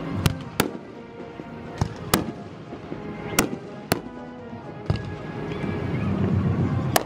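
Aerial fireworks display: a series of sharp bangs from shells bursting, about eight of them at uneven intervals, over music playing in the background.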